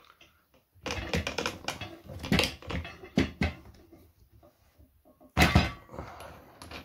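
Irregular clicks and knocks of metal parts being handled as a chainsaw attachment's metal housing is slid and fitted onto an angle grinder's head, with a louder clatter about five and a half seconds in.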